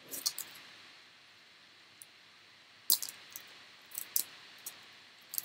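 Trading cards being handled and flipped through by hand: scattered crisp clicks and snaps of card stock, the loudest about three seconds in.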